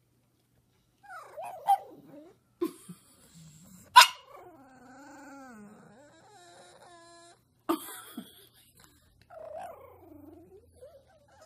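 A pug whining in long, wavering calls that slide down and up in pitch, with short sharp barks about four and eight seconds in.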